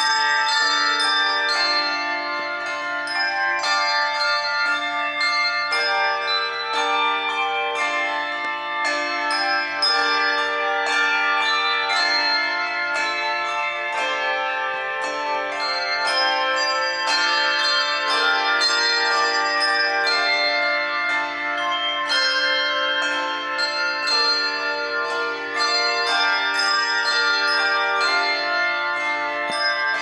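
Handbell choir playing a piece: many handbells struck one after another and together, several times a second, their notes ringing on and overlapping in chords.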